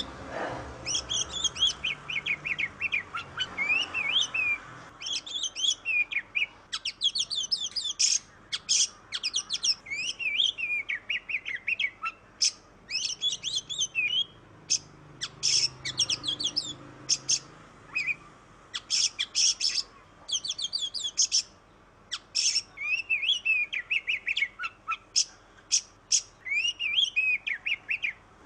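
Oriental magpie-robin (kacer) singing continuously in full song: a fast, varied run of whistles, trills and sharp chirps, broken by brief pauses.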